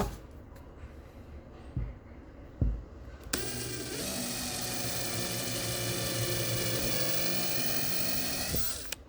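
Power drill with a 1/8 inch bit drilling holes through the top of a plastic fuel tank. Two short knocks in the first few seconds, then the motor whines steadily from about a third of the way in and stops just before the end.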